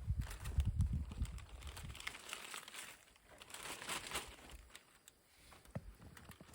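Crinkling and rustling of wrapping being handled, with small clicks, loudest in the middle; a low rumble on the microphone in the first second and a half.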